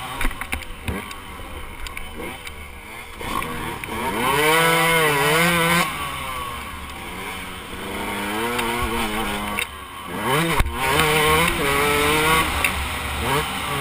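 Dirt bike engine under way on a motocross track, revving up and dropping back several times as the rider accelerates and shifts.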